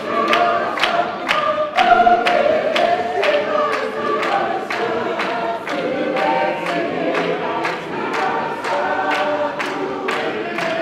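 A large congregation singing together in many voices, held to a sharp, steady beat that falls about twice a second.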